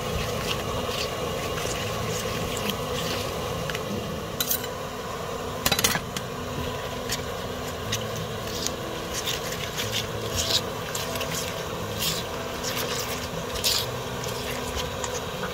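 A spoon stirring and scraping a thick gochujang seasoning paste in a bowl, with small clicks of the spoon against the bowl and a couple of sharper knocks about four and six seconds in, over a steady low hum.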